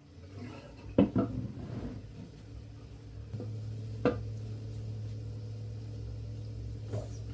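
Dishes and cutlery clinking and knocking: two close knocks about a second in, then three more spaced over the next six seconds. A low steady hum comes in about halfway through.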